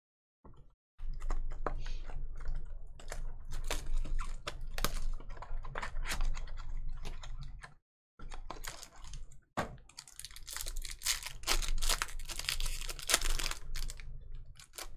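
Trading cards and packs being handled and flipped through: a dense run of small clicks and ticks that stops briefly twice in the middle.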